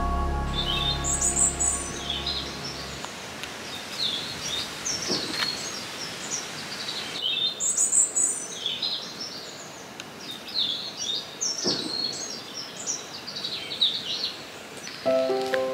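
Small songbirds chirping and singing, a busy run of quick high notes. Background music fades out over the first three seconds and comes back near the end.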